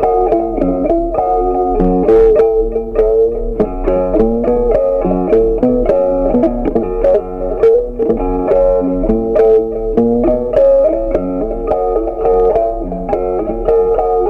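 Instrumental background music: a melody of plucked guitar notes over a low bass line.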